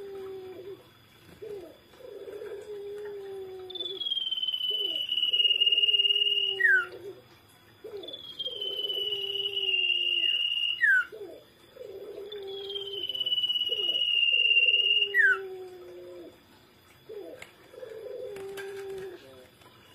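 Common iora (cipow) singing three long drawn-out whistles, each a couple of seconds long, sliding slowly down and ending in a quick falling note. Under them runs a lower call, repeated about once a second.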